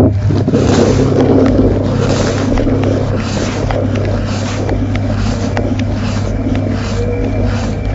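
Washing machine running, heard from inside the drum: water and laundry sloshing in regular swishes about once a second over a steady low motor hum, with occasional sharp ticks.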